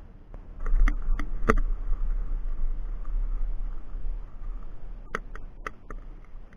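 Paramotor trike landing with its engine dead. Less than a second in the wheels touch down, and a loud low rumble of rolling over rough ground starts. Three sharp knocks from the frame come soon after touchdown and another four near the end.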